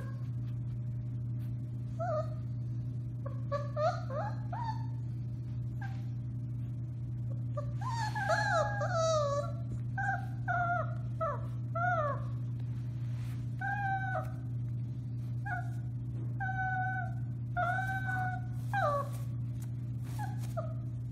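Four-week-old Alaskan Malamute puppy howling in a series of short, wavering calls that bend up and down in pitch, with a longer run of calls about eight seconds in.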